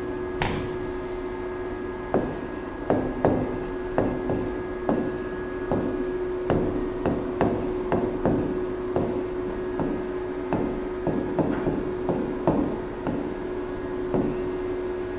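Chalk writing on a chalkboard: irregular taps and short scratchy strokes as letters are formed, with a longer scrape near the end as a line is drawn. A faint steady hum runs underneath.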